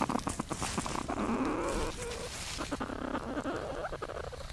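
Platypuses moving in their nesting chamber, heard through a microphone inside the burrow: a quick run of scratching clicks in the first second, then a rough, continuous scuffling and grunting as the mother reaches her young.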